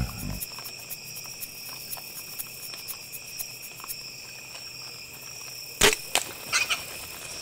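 Insects trilling steadily at several high pitches. A moment of background music cuts off just after the start, and about six seconds in there is a sharp knock followed by a few quieter clicks.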